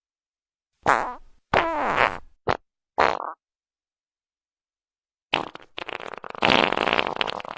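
Farts: four short ones in quick succession about a second in, the second sliding down in pitch, then after a pause of about two seconds a long, rattling fart made of rapid flutters.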